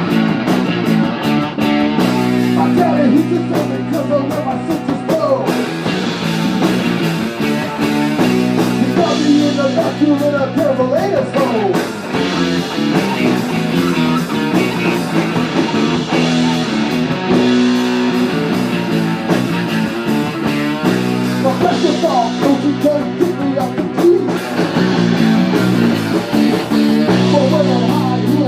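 Rock band music led by guitar, with strummed chords and bending lead lines and at times a singing voice.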